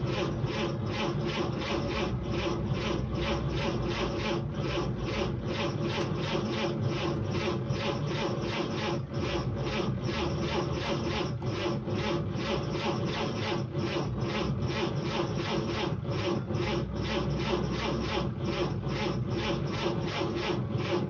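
The 216 cubic-inch straight-six of a 1946 Chevrolet Fleetmaster being cranked over on its 6-volt starter motor, a steady churning with even pulses about three a second over the starter's hum. It is an attempt to start an engine that has not run in about seven years.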